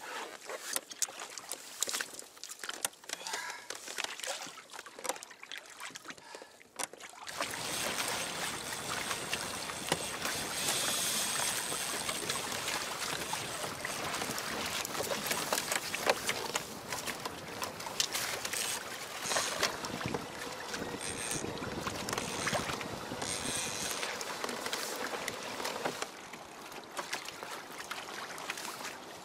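Small splashes of water beside a sailing kayak's hull. About seven seconds in this gives way to a loud, steady rush of water and wind as the Hobie Adventure Island sails fast through choppy sea, easing a little near the end.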